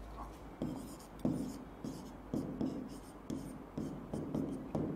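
Pen strokes on an interactive display screen as a word is handwritten: a string of light taps and short scratches, about two a second.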